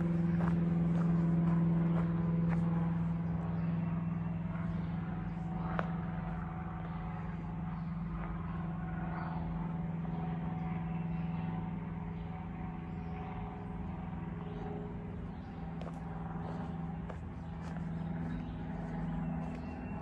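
Steady low motor hum holding one pitch and slowly fading, with a few faint ticks and crunches over it.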